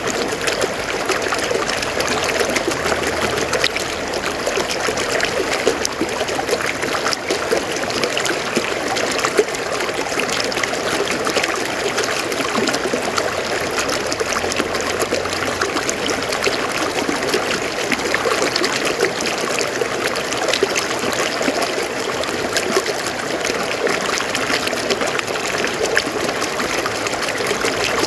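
A river flowing over rocks: a steady rush of water with constant fine splashing and trickling, unchanging throughout.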